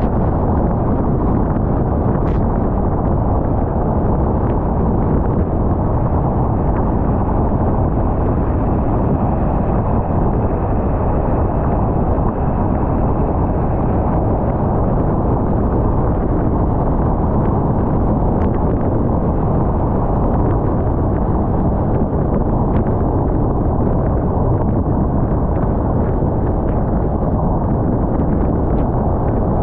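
Steady low rumble of a car driving at speed: road and wind noise, loud and even throughout.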